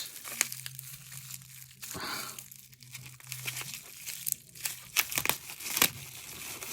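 Plastic packaging crinkling and rustling as a small part is unwrapped, with a few sharp clicks and taps, the strongest a little after the middle.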